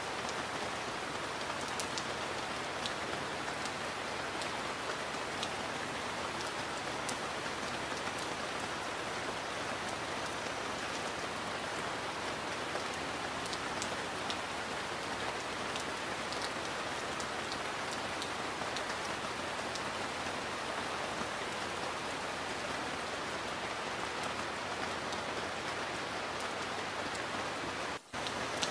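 Steady heavy rain: a dense, even hiss with scattered sharper drop ticks. The sound cuts out for a split second near the end.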